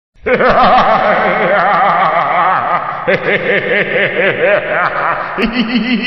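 A villain's spooky, theatrical laugh, drawn out in quick pulses that rise and fall in pitch, with a brief break about three seconds in before it carries on lower.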